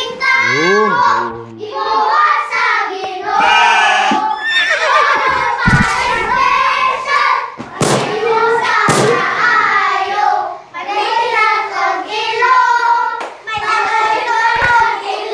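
A group of children singing and shouting together in a high, lively chorus while dancing, with a few sharp thuds about halfway through.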